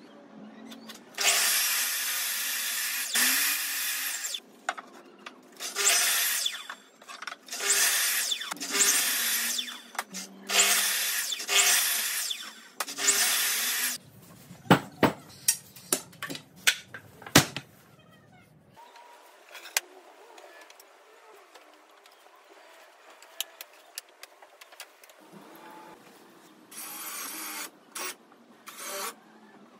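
Sliding mitre saw cutting pine boards in a series of short cuts, followed by a run of sharp wooden knocks as boards are handled. Near the end, a cordless drill drives screws in short bursts.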